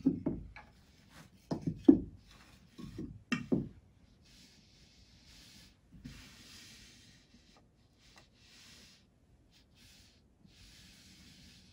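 Wooden puzzle pieces clacking and knocking together as they are picked up, turned over and set down, the loudest knock about two seconds in. After that come softer rubbing sounds as the pieces are slid into place across a carpet.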